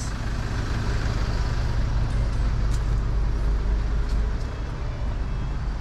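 Steady motor-vehicle rumble with an even hiss, holding the same level throughout.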